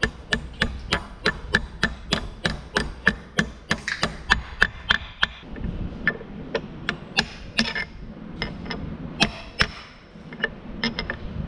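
Hammer blows with a metallic ring, quick and evenly spaced at about three or four a second, driving a frozen outer bearing race into the drive pod housing of a Vermeer hay mower. About halfway through the blows thin out into slower, irregular taps.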